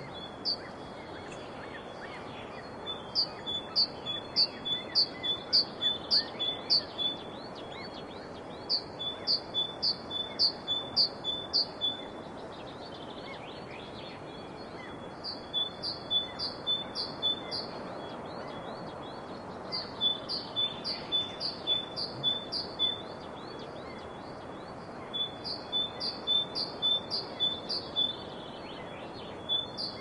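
A bird calling in five series of high, quick, downward-slurred notes, about two or three a second and each series lasting three to four seconds, over a steady background hiss.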